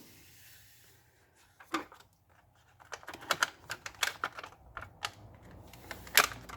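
Protective film being peeled off the inside of a replacement iPad digitizer glass: irregular sharp crackling and clicking. It is sparse at first and quickens after about three seconds, with the loudest snap near the end.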